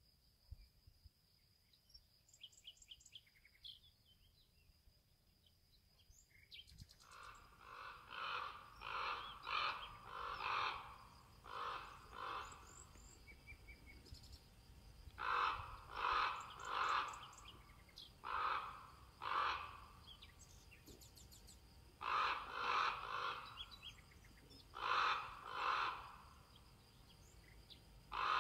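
Crow cawing, a series of harsh calls in groups of two to four that begins about seven seconds in and repeats with short pauses. Before that, only faint small-bird chirps and a thin steady high whine.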